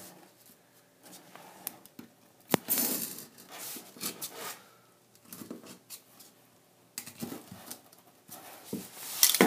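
Utility knife cutting short slots and notches through foam board along a steel ruler: a series of short, separate cutting strokes, with a sharp click about two and a half seconds in.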